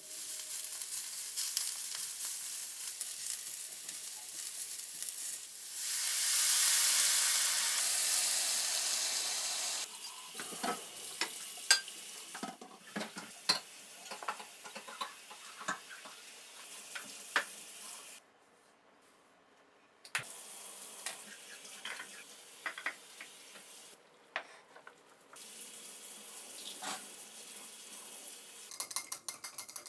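Kitchen sounds: a steady hiss that swells for a few seconds about six seconds in, then scattered clicks and clatter of utensils and dishes, broken by two short gaps.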